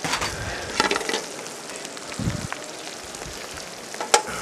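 Hot lobster oil sizzling in a pan, with basil leaves, garlic and butter frying in it and crackling. A sharp click near the end.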